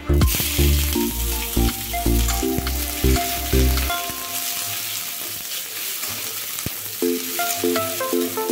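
Sliced onions hitting hot oil in a kadai and frying, a loud sizzle that starts suddenly as they go in and continues as they are stirred with a metal spatula, with a few scraping clicks. Background music plays underneath.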